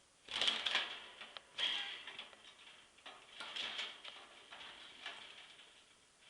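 A budgie clambering and flapping about its wire cage: bursts of clicking and rattling, four or five times, with quieter scratchy ticking between them.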